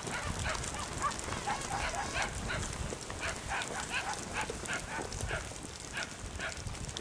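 Dogs barking and yipping over and over, several short yelps a second.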